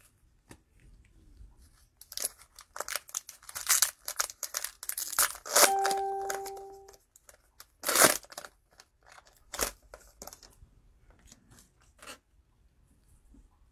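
Cellophane wrapper of a trading-card cello pack crinkling and tearing in a run of quick rustles. About six seconds in, a short steady beep-like tone sounds for just over a second.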